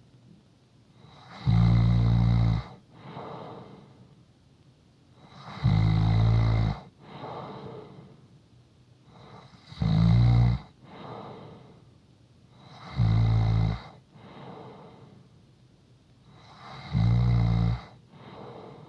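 A person snoring: five loud, low snores about every four seconds, each followed about a second later by a fainter breath.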